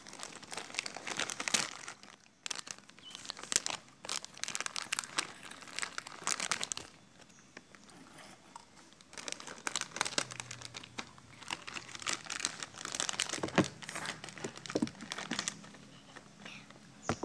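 Plastic snack wrappers crinkling and rustling as they are handled, in bursts of crackle with a short lull about halfway through.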